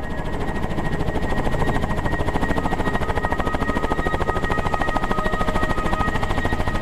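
Robinson R44 Raven II helicopter running close by as it moves low over the ground. The two-bladed main rotor gives a rapid, even beat, and steady high whines sit over it, a second whine joining a couple of seconds in.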